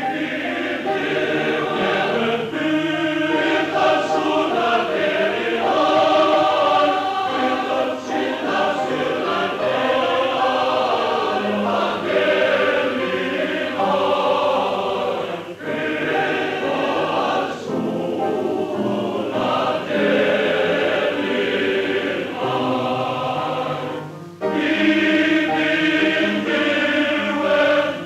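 Male voice choir singing in several-part harmony, with a brief break about 24 seconds in before the next phrase comes in louder.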